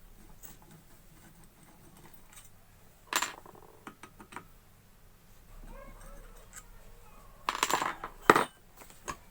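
Metal clinks of a spanner working the nuts on a monoblock water pump's front casing: one sharp clink about three seconds in, a few light taps, then a cluster of louder clinks and clatter near the end.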